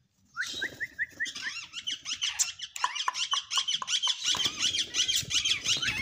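Indian ringneck parakeets giving a rapid stream of high, squeaky chattering calls that starts about half a second in and keeps going, with a low noise joining about four seconds in.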